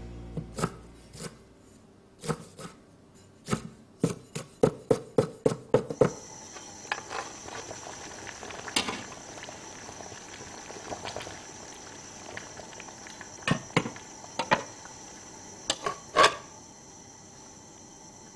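Sharp clicks and knocks: a quick, even run of them a few seconds in, then a few scattered knocks over a faint, high, steady tone.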